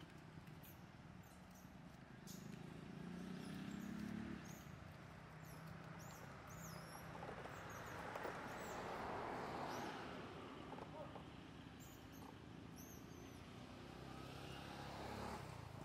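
Outdoor background of traffic: a low steady hum with a vehicle passing, swelling and fading about halfway through. Many short, high bird chirps over it.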